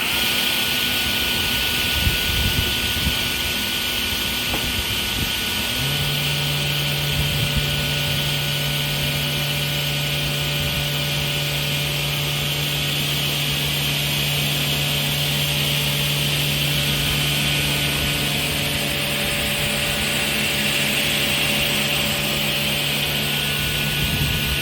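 REMA DMMD 40 sliding table saw with its 5.5 kW main motor and scoring blade, running steadily at speed. A strong low hum joins about six seconds in and holds almost to the end.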